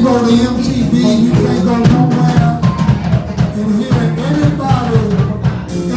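Live soul band playing, a drum kit keeping the beat under a moving bass line and other instruments.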